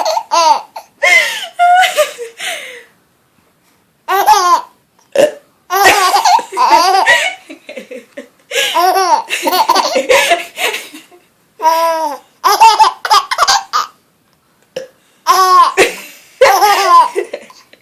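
A baby laughing in repeated bouts of belly laughter, with short pauses between the bouts.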